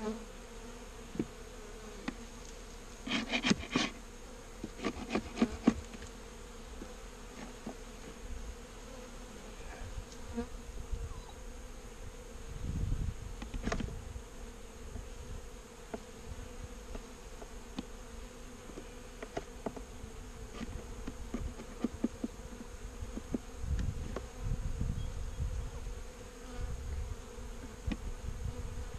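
Honeybees buzzing in a steady hum around an open hive. A cluster of sharp clicks and knocks about three to six seconds in, and another near the middle, from the wooden hive frames and boxes being handled.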